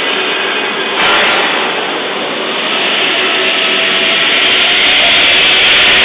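Rotary swaging machine running with a steady, loud mechanical noise while a cartridge heater tube is fed by hand into its dies. It steps up about a second in and is loudest near the end.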